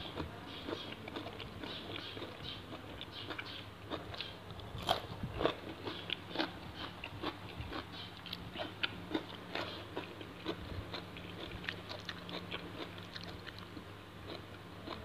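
Close-up mouth sounds of a man chewing raw shrimp cured in fish sauce: irregular crunching and wet smacking clicks, a few each second.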